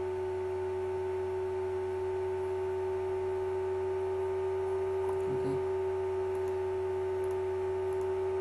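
Steady electrical hum and whine: several constant pure tones, one mid-pitched tone strongest, over a low hum, unchanging.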